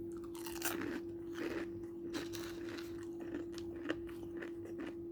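Chewing and biting on crunchy fried chicken close to the microphone, with irregular crisp crunches several times a second, over a steady hum.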